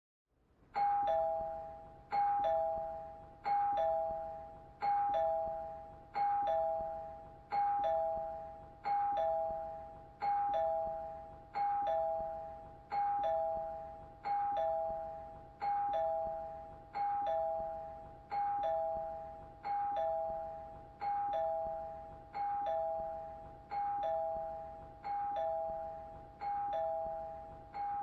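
Two-tone doorbell chime ringing ding-dong over and over, a higher note then a lower one, about every second and a half. It starts after a moment of silence about a second in.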